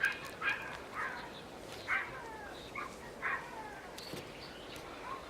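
Small dog giving a run of short, high yips, about seven, each falling in pitch.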